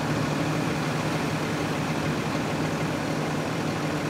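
Vehicle engine idling steadily, a constant low hum, over the even hiss of heavy rain.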